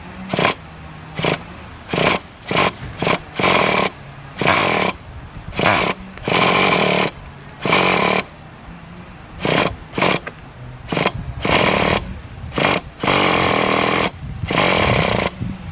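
Traxxas EZ-Start electric starter cranking the Nitro 4-Tec's TRX 3.3 nitro engine in about twenty short bursts, each from a fraction of a second to about a second long, without the engine catching. The cranking sounds weak, which the owner puts down to a weak starter battery.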